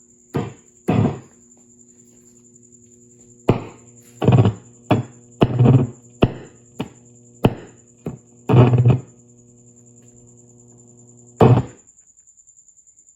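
Amplifier head with a noise fault: about a dozen irregular loud thumps and bursts, with a mains-type hum buzzing under them and a steady high-pitched whine throughout.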